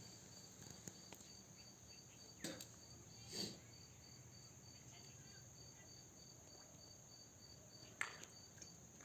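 Faint insects, likely crickets, chirping with a steady, evenly pulsing high trill. A few brief, sudden noises cut in about two and a half seconds in, again a second later, and most sharply near the end.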